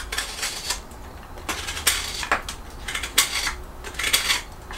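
A sharp hook knife slicing shavings from a piece of soft willow: a series of short scraping cuts, roughly one a second.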